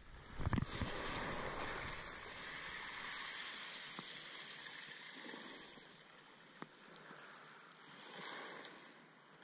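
A spinning reel cranked to retrieve a lure: a fine, fast whirring of the reel's gears that runs in spells with short breaks. About half a second in there is a short loud thump.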